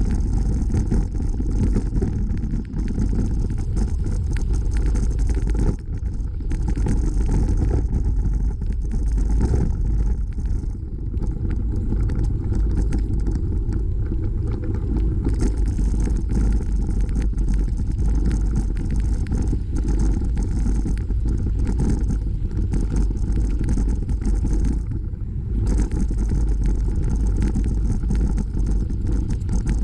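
Wind rumbling on the microphone of a bike-mounted camera while riding, together with the bicycle's tyres rolling over a gravel trail. The rumble is steady and low, easing briefly about six seconds in and again near the end.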